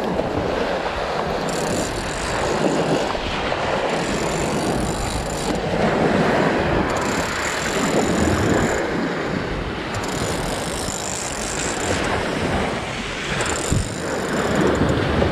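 Fishing reel being cranked in spurts of a second or two as an angler reels in a hooked shark, a mechanical whir and rattle that starts and stops several times, over a steady rush of surf and wind.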